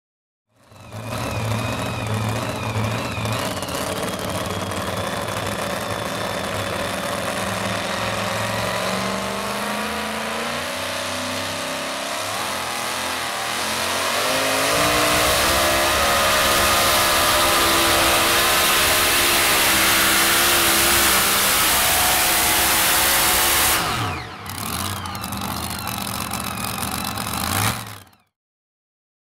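Supercharged engine of a pulling truck running at full throttle as it drags a weight-transfer sled. The revs climb steadily over the first half, then hold high. Near the end the engine lets off with a quick fall in pitch and runs on lower before the sound cuts off suddenly.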